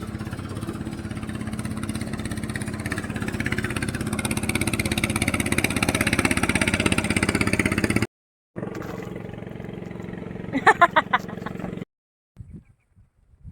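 A small boat engine running steadily and growing a little louder. After a brief break it runs again, with a short loud burst over it, and cuts off abruptly about two seconds before the end.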